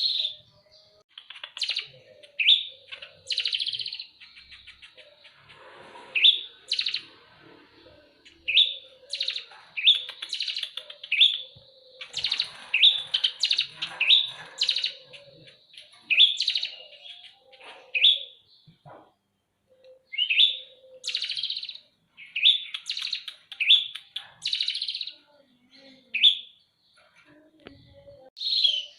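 Eurasian tree sparrows chirping: short, sharp chirps repeated in quick, irregular runs throughout. This is the agitated chirping of sparrows fighting.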